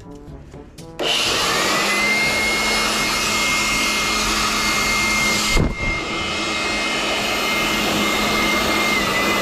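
Repaired electric blower switched on about a second in, its motor whining up to speed and then running steadily with a loud rush of air. A brief knock about halfway through does not stop it.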